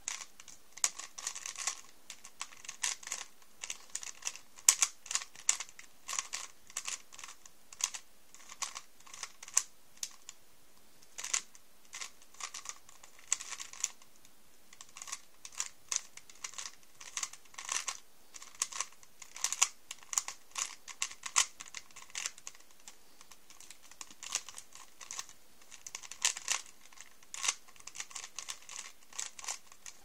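Rubik's Cube 3x3 being turned by hand: rapid plastic clicking and clacking of the layers, in quick bursts with brief pauses between.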